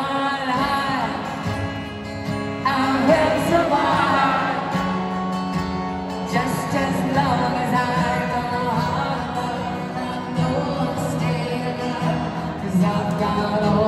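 Live amplified concert music: a singer with acoustic guitar and backing, heard from within the arena audience.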